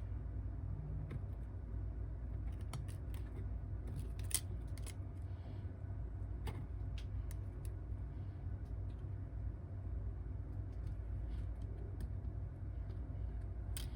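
Scattered small clicks and taps from handling the disassembled phone and small repair tools, over a steady low hum.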